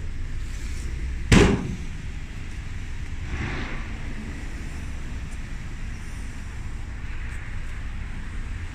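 A truck canopy's side access door slammed shut once, a single sharp bang, over a steady low background rumble.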